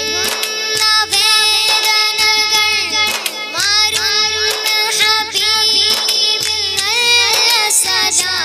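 A boy singing an Islamic devotional song, with long held notes that glide and bend in pitch, over a repeating low beat.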